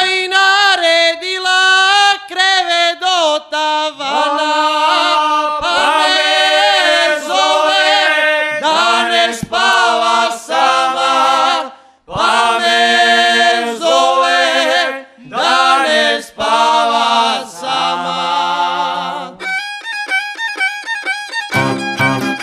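Male folk group singing a Šokac kolo song in several-voice harmony, mostly without instruments. Near the end the string band (tamburica, upright bass, guitar) comes back in, first with a quick repeated high figure and then with the full band and bass.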